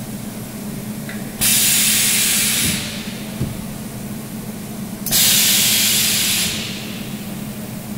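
Pneumatic ram of a capacitor-discharge projection welding machine hissing twice, once as the upper electrode comes down onto the nut and strip and again as it lifts. Each hiss starts suddenly and lasts just over a second. There is a single sharp click between them, over a steady low hum.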